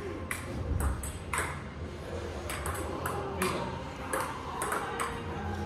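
Table tennis balls clicking off paddles and tables during rallies, with sharp ticks about twice a second at an uneven pace, as hits from two games mix together.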